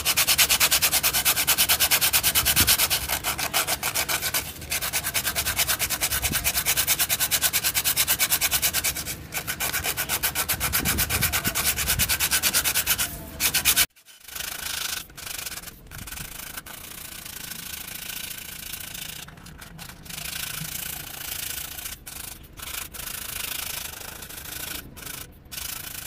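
A small piece of sandpaper rubbed quickly back and forth by hand along the edge of a white cut-out shape, smoothing it. The strokes are loud and even at first, break off abruptly about halfway through, then go on quieter and more uneven.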